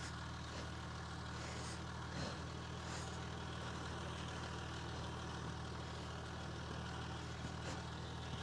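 Diesel car engine idling steadily, with a few faint scrapes from a board digging snow and dirt by the front wheel.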